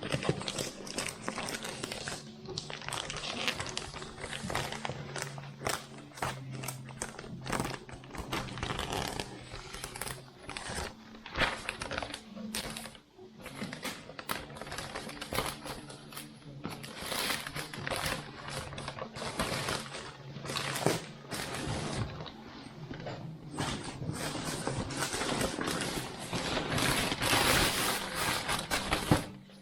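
Packaging being handled for unboxing: plastic and cardboard crinkling and rustling, with many irregular clicks and light knocks.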